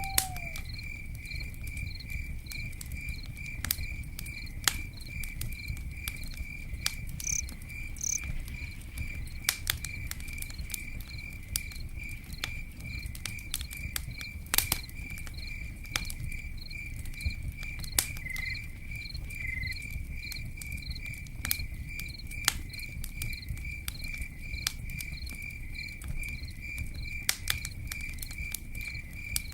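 Campfire crackling, with scattered sharp pops over a low steady rumble, while a cricket chirps steadily at about two chirps a second.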